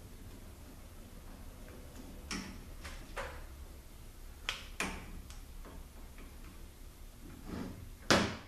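Scattered sharp clicks of a hand driver working the small T25 bolts on a 48RE transmission valve body, with one much louder clunk near the end as the valve body is handled on the bench.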